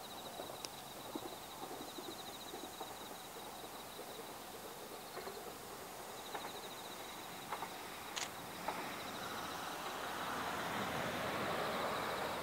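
Rural outdoor ambience: a high, rapidly pulsed trill comes and goes, with faint scattered clicks. From about nine seconds a broad rushing noise swells and grows louder.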